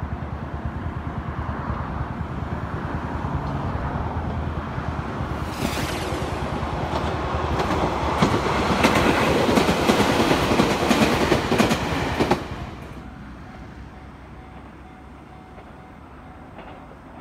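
Chichibu Railway electric commuter train passing below, its wheels clattering over rail joints and growing louder, then cut off suddenly about twelve seconds in. A faint low rumble follows.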